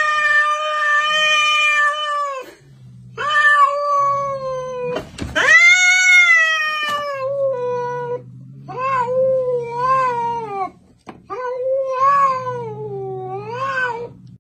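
Domestic cats squaring off: a series of about six long, drawn-out yowls, the loudest about five seconds in, the later ones wavering up and down in pitch, with a low rumble in the gaps between them.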